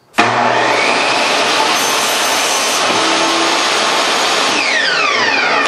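Portable table saw switched on with a sudden start and running steadily at full speed. It is then switched off about four and a half seconds in, its whine falling as the blade spins down.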